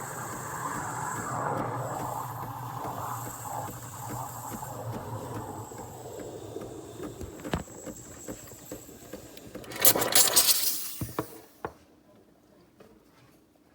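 Espresso machine running with a steady hum that fades away over the first several seconds, followed about ten seconds in by a brief, loud burst of noise.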